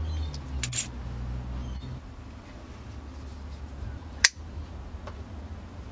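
Quiet room tone with a low hum, a few light clicks in the first second, and one sharp click a little over four seconds in.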